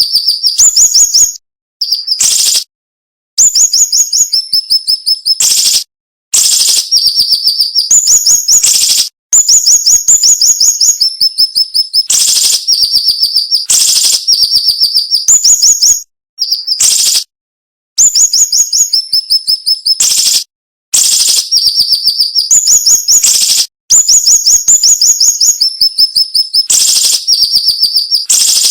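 Siri-siri bird singing: long, rapid series of sharp, high-pitched notes in quick succession, broken by brief pauses of a second or less.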